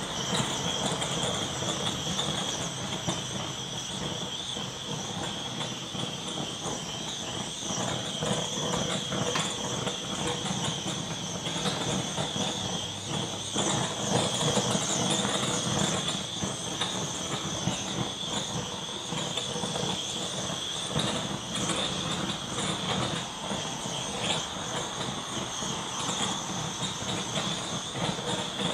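Hand-held butane torch on a gas canister burning with a steady hiss and a high whistle, its flame swept over wet acrylic paint.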